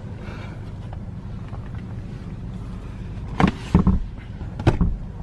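Steady low rumble of background noise, with a few short clunks and clicks about three and a half seconds in and again near the end, from the rear-seat interior fittings of a car being handled.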